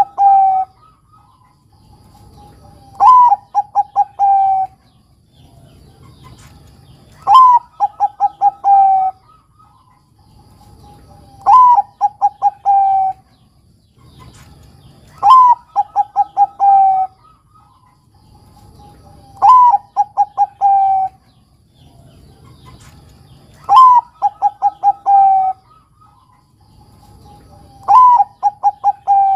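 Bangkok-type zebra dove (perkutut) cooing its song about seven times, a phrase every four seconds or so. Each phrase is an opening coo, a quick run of four or five short coos, and a drawn-out final coo sliding slightly down.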